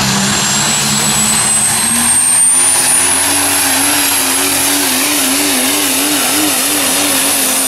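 Super Stock diesel pulling truck running flat out under the load of the sled. A high turbo whistle climbs steadily over the engine. The engine note rises about two seconds in and then wavers up and down, and the whistle starts to fall right at the end.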